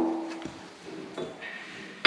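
Steel shims and keeper parts clinking on a dozer C-frame's ball socket: a short metallic ring dies away after a knock at the start, followed by a few lighter clinks that ring briefly.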